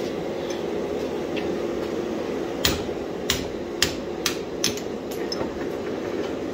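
A hand hammer strikes a steel tool seated in the punched eye of an axe head held in a leg vise, working the eye open. The metal-on-metal blows start about two and a half seconds in and come at about two a second, the first few the loudest, over a steady hum from the shop.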